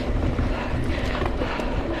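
Mountain bike riding a dirt trail: steady wind buffeting the microphone over tyre rumble, with light scattered rattles and clicks from the bike.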